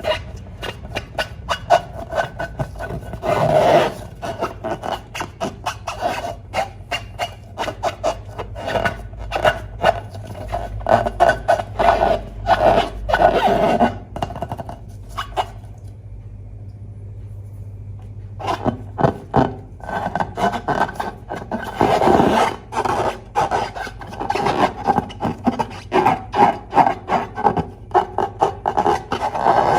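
Slime being squished and stretched by hand: rapid sticky crackles and squelches, pausing for a few seconds midway before starting again.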